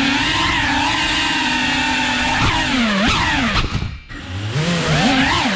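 FPV quadcopter motors and propellers whining, steady at first, then swooping rapidly up and down in pitch as the throttle changes. The sound drops nearly out about four seconds in as the throttle is cut, then spins back up from a low pitch.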